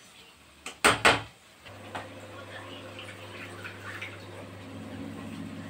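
Two sharp clanks of metal kitchenware about a second in, then water running from the tap of an RO water purifier into a vessel over a steady low hum.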